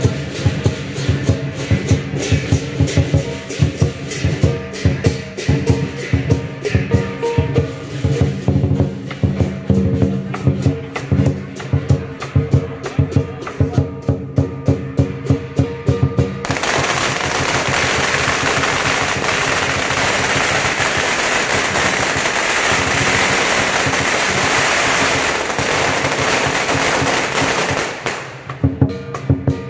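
Background music with a steady beat, then about halfway in a long string of firecrackers goes off in a dense, continuous rattle of bangs lasting about ten seconds. It stops shortly before the end and the music returns.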